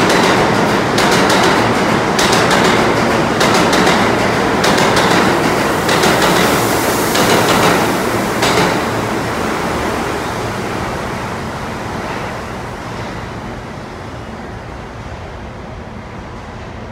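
New York City subway train running through an underground station, wheels clacking repeatedly over the rails. The sound fades away from about halfway through as the train moves off.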